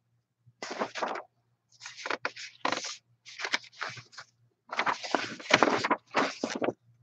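Irregular bursts of rustling and scraping handling noise, about six in all, over a faint steady low hum.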